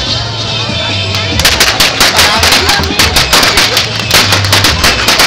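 A rapid string of firecrackers going off, several sharp bangs a second, starting about a second and a half in and running on.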